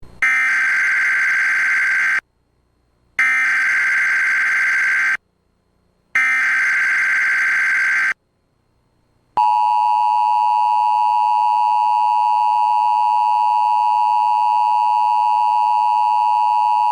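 Emergency Alert System activation: three bursts of SAME header data, a digital warble each about two seconds long with short gaps between them, followed about nine seconds in by the EAS two-tone attention signal, a steady harsh dual tone.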